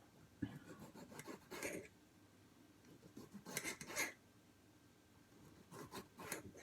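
Kitchen knife cutting tomatoes on a cutting board: three short bursts of rasping, scraping strokes, about a second apart.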